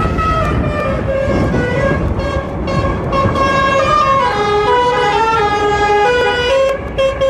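A bus's musical horn playing a tune: a quick run of held notes that step up and down in pitch, over steady road and wind noise.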